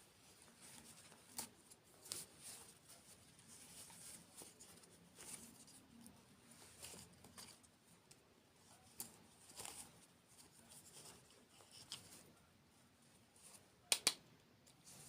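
Close-miked ASMR eating sounds: soft crackles and crisp clicks of chewing dessert, with two sharp clicks near the end.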